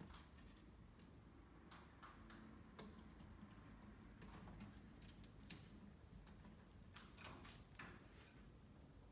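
Faint, irregular clicks and taps of a cockatoo's beak and feet on the wooden branches of its play stand as it climbs about, with a few quick clusters of taps.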